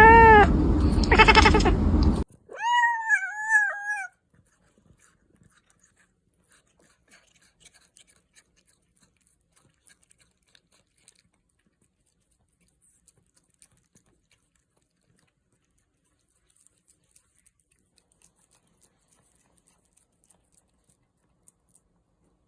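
A cat meowing loudly several times over a noisy background, then one higher, wavering meow. After that, near silence with only faint clicks.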